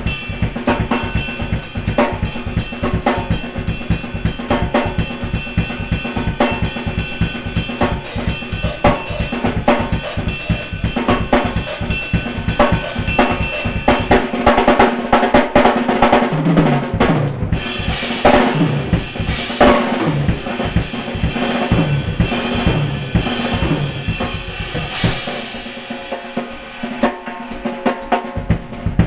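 Drum kit played fast and without a break: rapid bass drum and snare strokes, tom runs about halfway through, and cymbal crashes in the second half. The bass drum thins out near the end.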